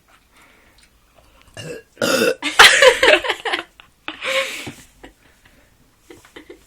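A person burping loudly: a long, drawn-out burp about two seconds in, followed by a shorter one a second later.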